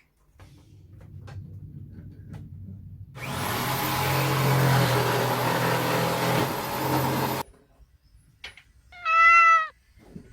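A motor-driven machine runs loudly with a steady high whine for about four seconds and cuts off suddenly. About a second and a half later a cat gives one loud meow.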